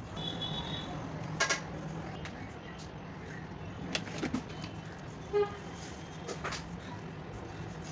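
Steady low background hum, with a few sharp clicks and a short horn-like toot about five seconds in.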